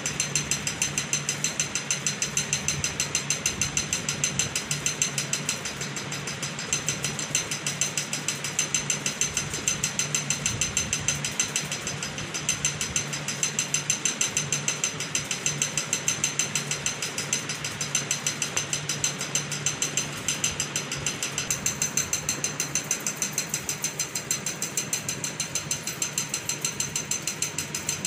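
Rapid, even mechanical ticking, about five clicks a second, running on steadily over a low, steady hum.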